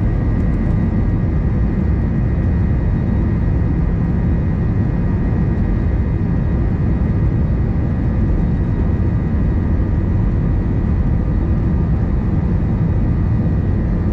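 Jet airliner's engines and airflow heard inside the cabin during the climb after takeoff: a steady, loud, deep roar with a few faint steady high tones over it.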